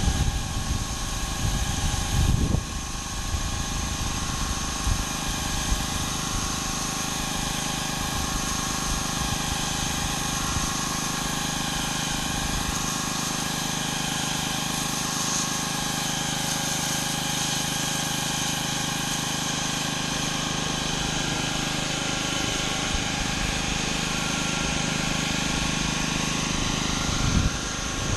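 Gas pressure washer engine running steadily under load, with the hiss of high-pressure water spraying on concrete.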